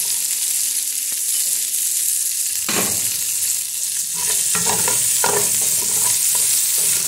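Diced onion and red and green bell pepper sizzling in olive oil in a metal pot with a steady hiss. A wooden spoon stirs and scrapes against the pot a few times in the second half.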